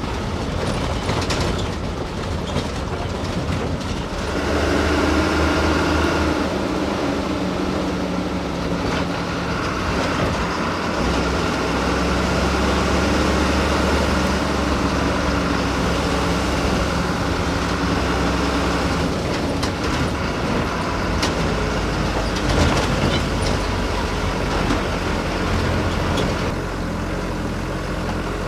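Bus diesel engine running under way, with road and body noise. The engine note steps up and grows louder about four seconds in, and a few sharp knocks come later.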